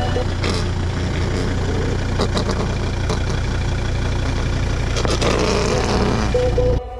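Car engine running at low speed as the car creeps forward, with a steady low hum and scattered crackles from the tyre on gravel.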